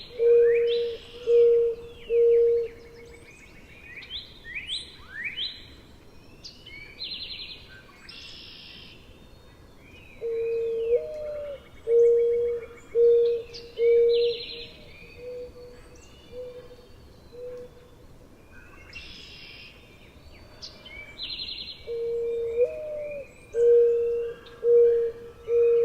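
Mourning dove cooing at close range: the tail of one song phrase, then two full phrases about twelve seconds apart, each a long first coo that swoops up and down followed by three or four short, even coos. Smaller songbirds chirp and trill higher in the background.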